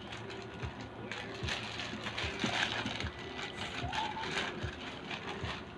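Red plastic mailer bag being pulled and torn open by hand, with irregular crinkling and crackling of the plastic.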